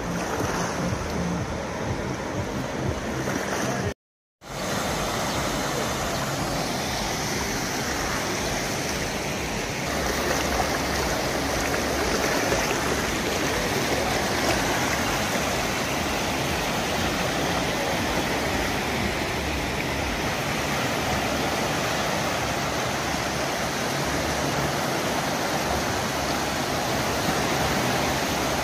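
Steady rushing of stormwater runoff after a heavy downpour, gushing over the sand into the sea. It is broken by a moment of silence about four seconds in.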